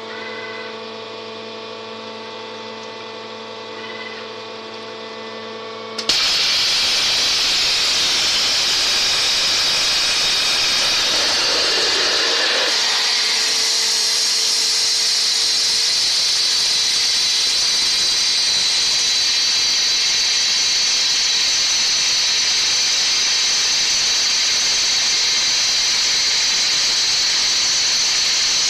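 Waterjet cutting machine: a steady hum with several fixed tones, then about six seconds in a sudden loud, high-pitched hiss as the high-pressure water jet cuts through the steel square tube, holding steady after that.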